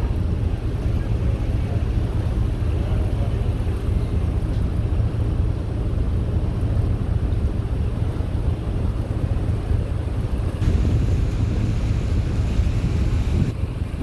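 Steady low rumble of a river ferry under way, its engine droning beneath wind buffeting the microphone. A higher hiss comes in about ten seconds in and drops away near the end.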